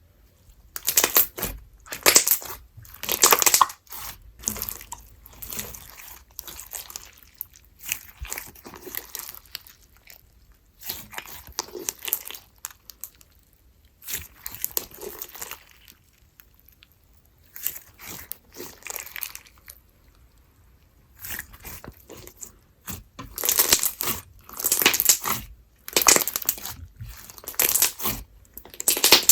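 Hands squishing, stretching and folding a sticky slime with lemon peel bits mixed in, making crackly, popping squelches in irregular bursts with short pauses between them.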